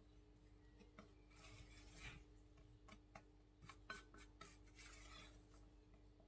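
Faint rubbing and scraping of a spatula folding whipped egg whites into sponge-cake batter in a glass bowl, with scattered light clicks of the spatula against the glass.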